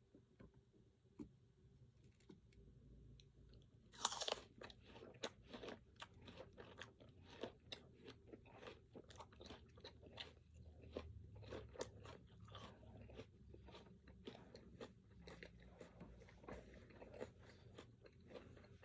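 Close-miked eating: a crisp bite about four seconds in, then steady crunchy chewing with many small cracks and clicks.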